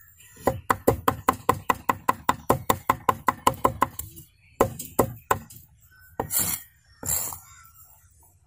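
A broad-bladed knife rapidly chops a tomato on a thick wooden plank, about six sharp knocks a second for some three seconds. A few slower chops follow, then two longer, rougher strokes of the blade on the board near the end.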